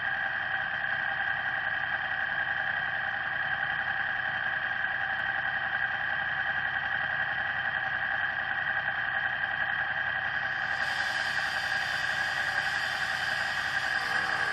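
Motorcycle engine idling steadily. The sound grows brighter, with added hiss, from about ten seconds in.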